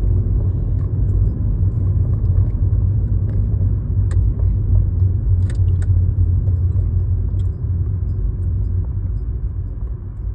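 Steady low rumble of a car heard from inside the cabin, with a few faint clicks or rattles.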